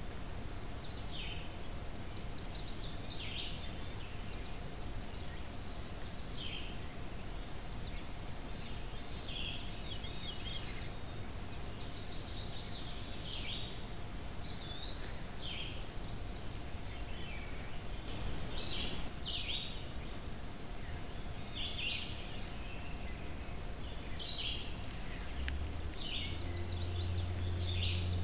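Woodland songbirds calling and singing: many short, quick chirping phrases, high-pitched, one after another, over a faint steady hum and background hiss. A low steady drone comes in near the end.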